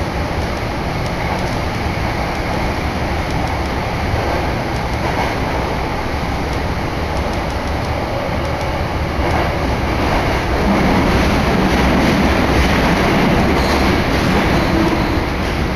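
Subway train on the Tokyo Metro Yurakucho Line, heard from inside the car as it runs into a station and slows: a steady rumble of wheels on rail and running noise, which grows somewhat louder and deeper about two-thirds of the way through.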